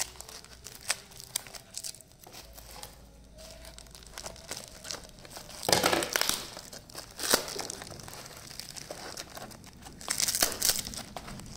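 Plastic bubble wrap and foam packaging crinkling and tearing as it is pulled open by hand around a glass bottle, in irregular bursts, loudest about six seconds in and near the end.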